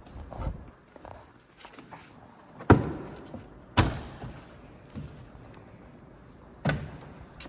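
Plastic door trim panel being pushed and knocked into place on the door, giving a few sharp knocks as its retaining clips seat. The loudest come about three and four seconds in, with another near the end and softer thuds between.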